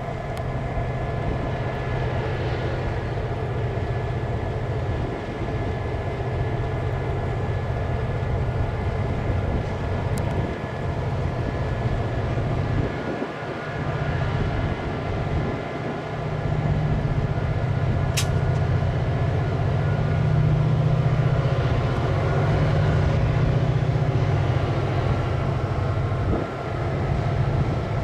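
Diesel locomotive engine running steadily as it pulls a string of tank cars slowly past, growing louder about halfway through, with one sharp click near the end.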